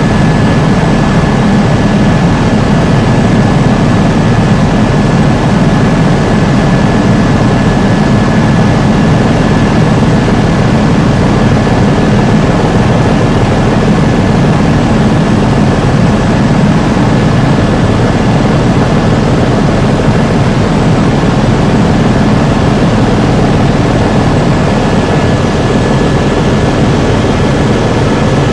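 Helicopter in steady cruise heard from inside the cabin: the engine and rotor make a loud, unbroken low drone with a steady high whine above it.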